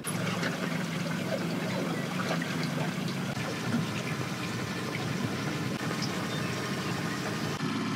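Aluminium fishing boat under way on the lake: water washing and splashing against the hull over a steady motor hum, with small ticks and knocks.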